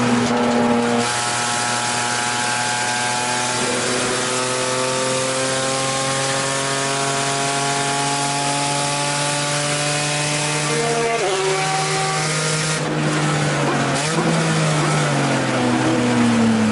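Straight-six engine of a 1989 BMW 325i E30 race car heard from inside the cabin at full power: an upshift about a second in, then a long pull with the pitch slowly rising, a shift in pitch after about eleven seconds, and the pitch falling near the end as the car slows for a corner.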